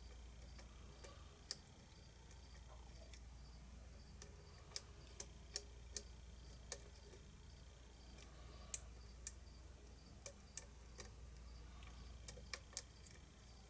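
Faint, irregular metallic clicks and ticks of a lock pick working the pin stack inside a lock cylinder, about fifteen in all, over a low steady hum.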